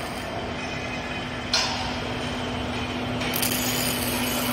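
Factory workshop noise from container-house manufacturing: a steady machine hum under a general din, with a sudden loud hissing noise that starts about a second and a half in and lasts about two seconds.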